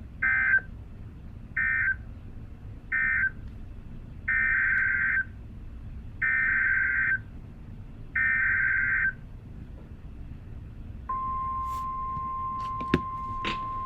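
NOAA Weather Radio SAME alert data bursts: three short screeching bursts (the end-of-message code), then three longer ones (the header of the next alert). About eleven seconds in, the steady 1050 Hz warning alarm tone starts, with two sharp clicks near the end.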